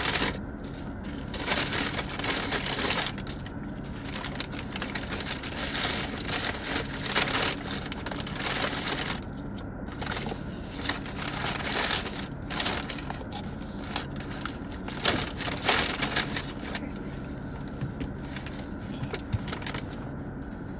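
Fast-food paper bag and wrappers rustling and crinkling in irregular bursts, over a faint steady low hum.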